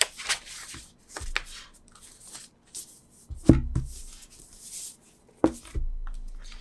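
Paper and card rustling as an album photo book's pages and cover are flipped and handled, with two dull thumps, one about halfway through and one near the end, as the book and its cover are laid down on a desk.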